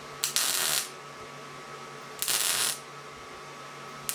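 MIG welder's arc struck in short bursts of about half a second, about two seconds apart, three in all, the last right at the end: short welds fixing a steel flange nut into a hole in a steel plate.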